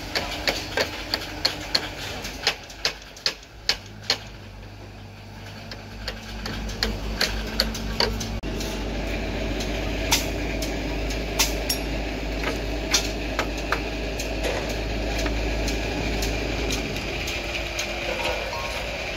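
Sharp taps and clicks of hand tools working on a building site, a few a second at first, then scattered. From about a third of the way in, a steady low machine hum runs under them.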